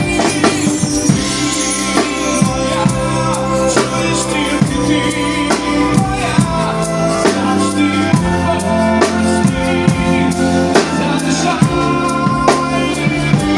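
Live band music: singing over a drum kit keeping a steady beat, with held instrumental chords underneath.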